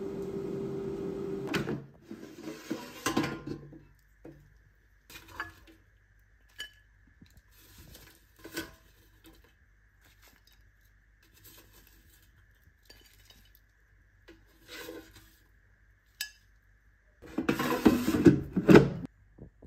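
An air fryer's fan running with a steady hum that stops about two seconds in, followed by scattered clicks and knocks of metal tongs against the fryer basket and a ceramic plate as fries are lifted onto it. Near the end comes a louder run of clinking and clattering.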